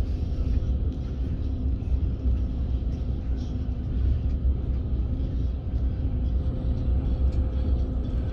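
Railway station platform ambience: a steady low rumble with a faint steady hum underneath.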